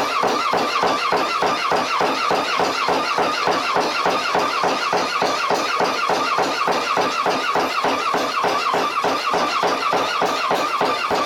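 Homemade cam-driven power hammer running, its ram hammering in a steady rapid rhythm of about four blows a second, each blow a ringing metallic clang. It is giving a pretty good solid hit, its cam and hinge height freshly adjusted.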